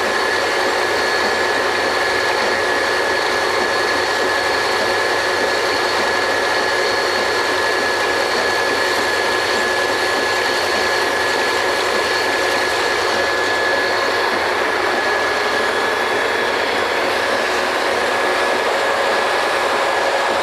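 Oil-well drilling rig machinery running: a loud, steady din with a constant high whine over it.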